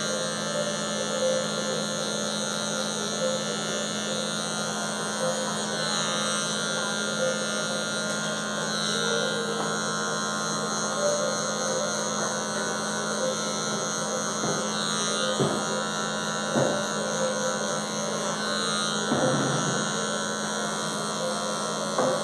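Wahl Magic Clip Cordless hair clipper running with a steady buzzing hum as it cuts short hair along the nape, with a few short knocks in the second half.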